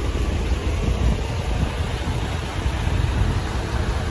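Steady outdoor background noise: a low, fluctuating rumble under an even hiss.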